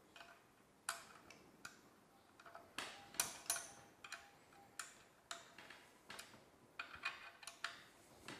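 Light, irregular metal clicks and taps, about two a second, of a wrench turning and seating screws that fasten a depth-adjustment adapter to a TS 55 R circular saw's base plate. The loudest pair, a little past three seconds in, rings briefly.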